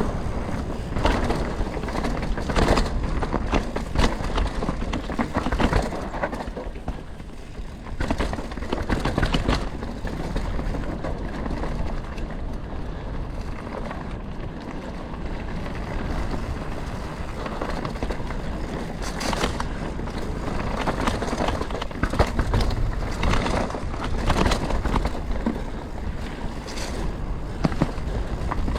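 Canyon Spectral 125 full-suspension mountain bike riding down a dirt and rock trail: tyres rolling and crunching over the ground, with frequent knocks and rattles from the bike over the bumps.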